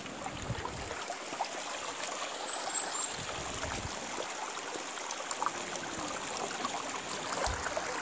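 Shallow mountain stream trickling over rocks, a steady rush of running water, with a few dull bumps now and then.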